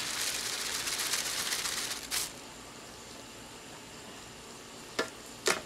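Large raw shrimp poured from a plastic bag into a pot of boiling water, with about two seconds of splashing and crinkling. After that a steady quieter hiss from the boiling pot, and two sharp clicks near the end.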